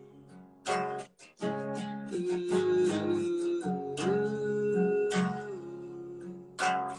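Acoustic guitar strummed, its chords ringing on between strokes.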